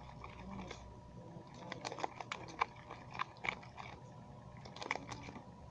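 Slime in a clear plastic tub being tilted and handled: faint, irregular small clicks and crackles, scattered through the second half.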